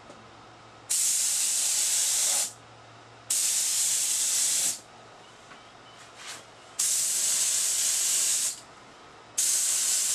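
An HVLP spray gun hissing in four trigger pulls of about a second and a half each, spraying urethane finish with compressed air. The last pull starts near the end.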